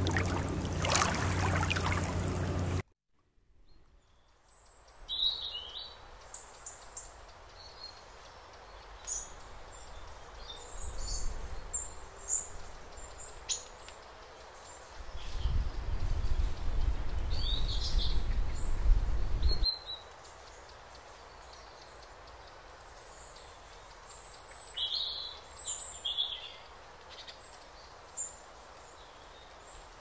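Lake water noise for the first few seconds, cutting off abruptly. Then small birds chirping and calling on and off over a faint steady woodland background. A loud low rumble runs for about five seconds in the middle.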